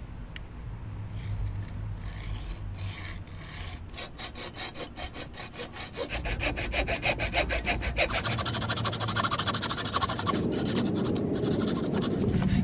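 Hacksaw cutting through a metal bimini-top frame tube: a few slow strokes at first, then quick, even back-and-forth strokes from about four seconds in that grow louder.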